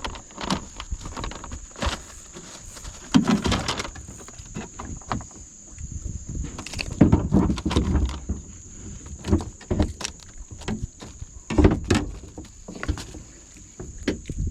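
Irregular knocks and bumps against a kayak's hull as gear is handled aboard, the loudest clusters about three seconds in, about seven seconds in and near twelve seconds.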